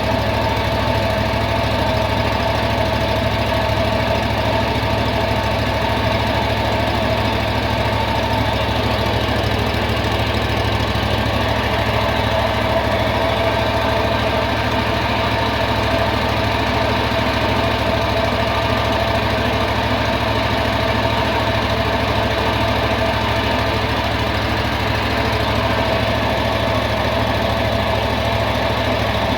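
The rebuilt 24.6 hp EFI engine of a John Deere Z925M zero-turn mower, running at a steady speed throughout, with no change in pitch.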